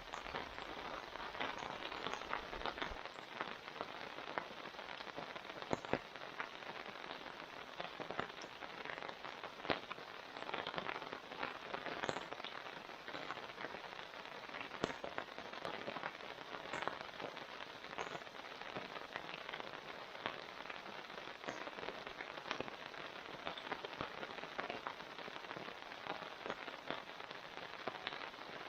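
Steady rain falling, with many sharp individual drop hits scattered through it.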